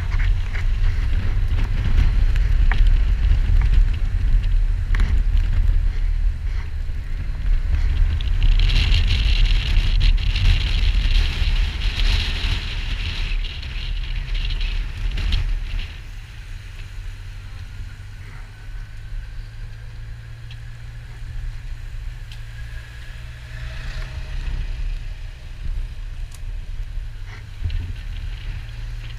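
Motorcycle engine running at low speed under heavy wind rumble on the bike-mounted camera's microphone. The rumble eases about halfway through.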